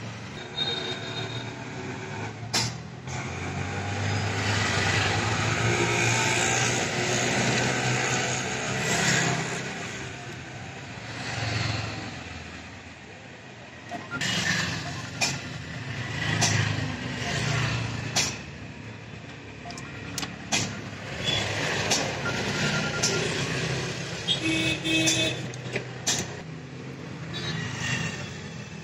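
Road traffic passing close by, swelling and fading as vehicles go past, with scattered sharp clicks and knocks from handling wires and tools.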